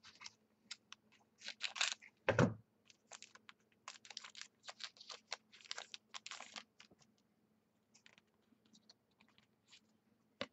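Football trading cards being handled and flicked through one after another, with rustling of a foil card pack. Many short clicks and rustles, with a louder thump about two seconds in.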